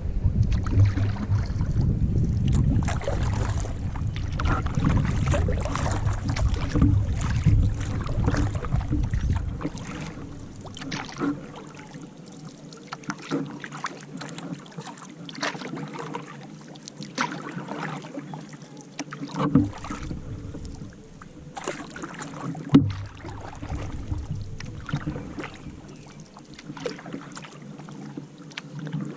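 Kayak paddles dipping and splashing through lake water in irregular strokes, with drips between them. A low rumble sits under the strokes for about the first ten seconds, then drops away, and a couple of sharper knocks come later on.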